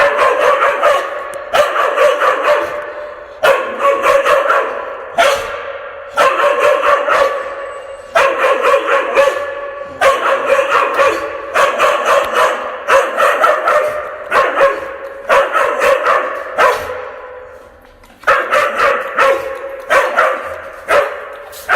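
A large dog barking fiercely in repeated deep barks, in bouts with a short pause about three-quarters of the way through; each bark echoes off the room.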